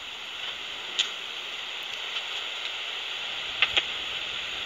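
Magenta Bat4 heterodyne bat detector giving a steady hiss, with a short click about a second in and a quick pair of clicks near the end. The clicks are a speckled bush cricket's brief chirps, too high-pitched to hear unaided, brought down into hearing range by the detector.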